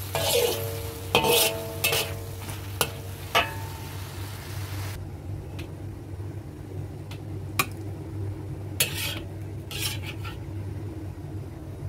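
A spatula stirs and scrapes shiitake mushrooms and meat in a sizzling wok, with brief metallic rings off the wok. About five seconds in the sizzle cuts off abruptly, and a few scrapes and clinks follow as the food is served onto a plate.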